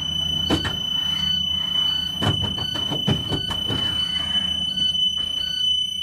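School bus emergency exit door alarm sounding a steady high-pitched buzz, the warning that the rear emergency door is open. Beneath it runs the low hum of the bus engine idling, with a few knocks from the door being handled.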